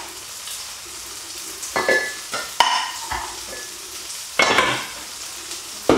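Tofu frying in hot oil in a pan, a steady sizzle, with several short clatters and knocks of pots, lids and utensils, the loudest about four and a half seconds in, some with a brief metallic ring.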